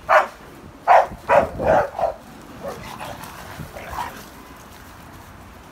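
Pit bulls barking during rough play: about five sharp barks in the first two seconds, then a few softer barks and yips.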